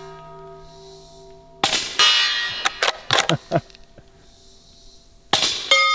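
Two suppressed subsonic .300 Blackout rifle shots, about a second and a half in and again near the end, each followed by a steel target ringing. Between them comes a quick run of four metallic clicks, the rifle's bolt being worked.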